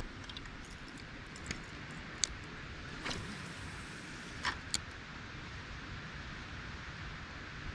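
Faint steady outdoor hiss with a handful of short, sharp clicks and ticks from handling a spinning rod and reel while casting and working a lure, two of them close together about four and a half seconds in.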